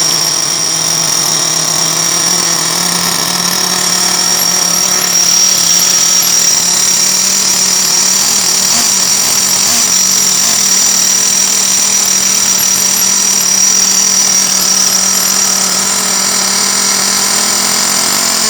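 Small nitro-fuelled RC car engine, an upgraded Savage XL engine in a 1/8-scale truggy, running steadily after a drill start, with a steady high whine over a heavy exhaust note.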